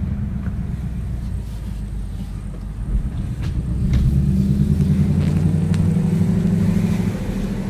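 2018 Ford Mustang GT's 5.0-litre V8 exhaust running at low revs, a deep steady rumble that grows louder from about four seconds in as the revs rise gently.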